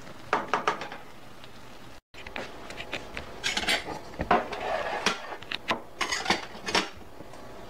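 A plastic rice paddle clicks and scrapes against a stainless steel skillet of cooked rice and chicken. After a short break in the sound about two seconds in, irregular light clinks and scrapes of dishes and utensils follow.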